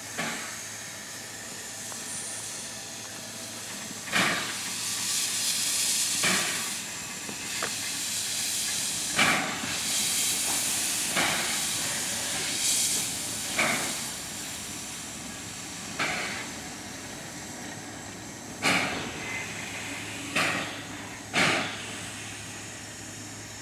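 Steam locomotive moving off slowly, giving sharp, unevenly spaced exhaust chuffs every one to three seconds, with stretches of high steam hissing from steam escaping around the cylinders.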